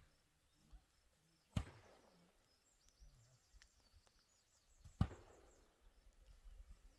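Two sharp knocks, each with a short ringing tail, about three and a half seconds apart, with faint high bird-like chirps between them.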